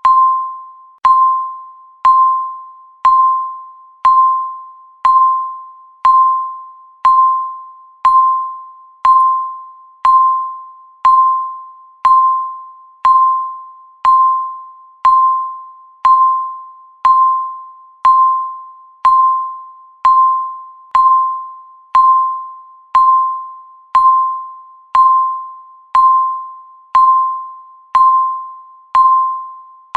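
Digital countdown timer beeping once a second: a single clear electronic tone that starts sharply and fades away before the next beep.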